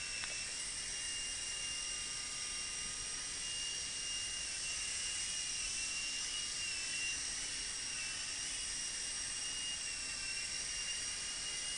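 Modelzone Thunder infrared indoor micro helicopter in flight: the steady high whine of its small electric motors and spinning rotor blades. The pitch wavers a little around the middle as it manoeuvres.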